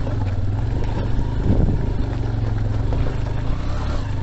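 Honda Livo's 110 cc single-cylinder engine running steadily as the motorcycle is ridden over a stony off-road track, with a brief swell about one and a half seconds in.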